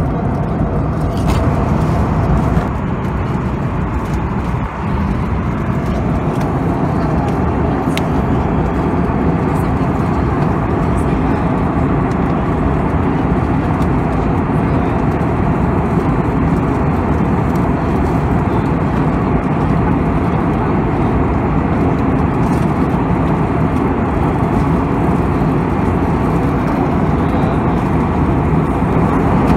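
Steady cabin noise of an Airbus A320neo in cruise, heard at a window seat beside the engine: an even rumble of engines and airflow with a low hum, dipping slightly for a moment a few seconds in.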